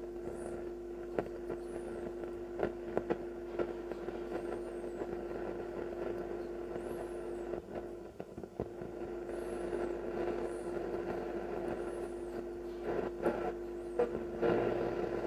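Telefunken Opus 8 valve radio's loudspeaker giving a steady hum and hiss with scattered crackles and a few faint high whistles. This is its first power-up on reduced mains voltage, set to medium wave with the volume high, and it is just starting to pick up something.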